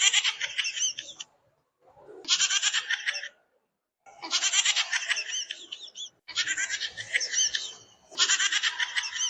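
A prank sound effect, a loud bleating animal cry, played five times in a row with short gaps between. Each cry is high-pitched, fast-pulsing and wavering, and lasts one to two seconds.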